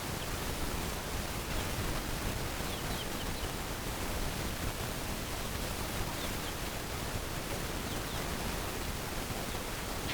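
Steady outdoor background hiss, with a few faint, short high chirps now and then.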